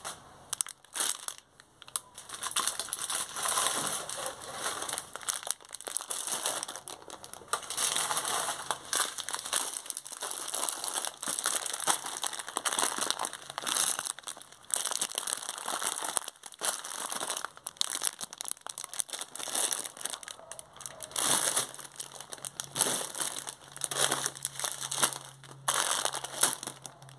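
Plastic packets of dry soup pasta crinkling and rustling as they are handled and moved about among other grocery packaging, in uneven spells with short pauses.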